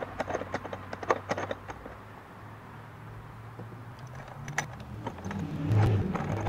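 Small metallic clicks and clinks as stainless Nylock nuts and fender washers are handled and started by hand on bolts inside a plastic Pelican case. A steady low hum runs underneath, and there is a louder low sound near the end.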